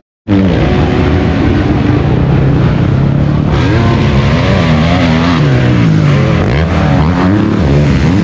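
Motocross bike engines revving hard on the track, their pitch rising and falling again and again as riders accelerate and shift.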